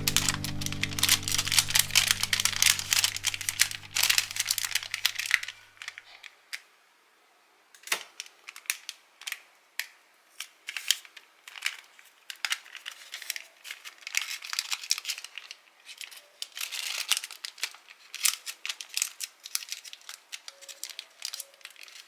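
Crinkling and rustling of packaging being handled, a rapid run of small crackles. Background music fades out over the first few seconds, there is a brief pause, and one sharp tap comes about eight seconds in before the crinkling resumes.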